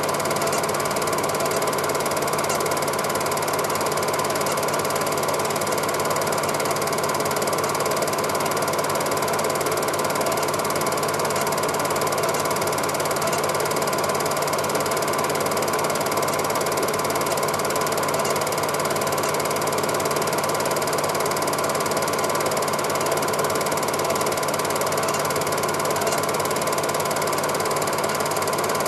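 Cine film projector running: a steady mechanical whirr and rapid clatter of the motor and film transport, even and unchanging throughout.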